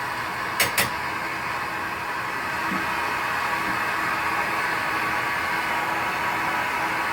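Plumber's torch flame hissing steadily while heating a part. There are two short metallic clicks a little under a second in.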